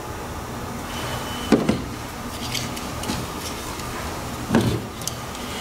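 Jump-starter pack's jumper clamp being handled and clipped onto a battery connection: two sharp clicks, about a second and a half in and again near the end, over a steady low hum. A brief high tone sounds just before the first click.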